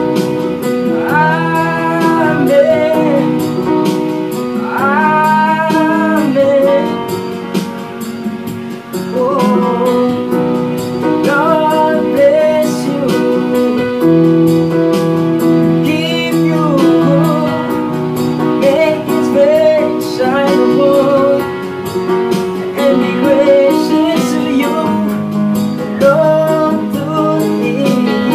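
Slow worship music played on an electronic keyboard: long held chords under a melody line that slides and wavers in pitch.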